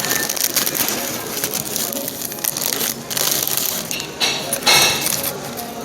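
Close-up crunching and rustling noises from eating and handling a burger meal, with a sharper burst about four and a half seconds in.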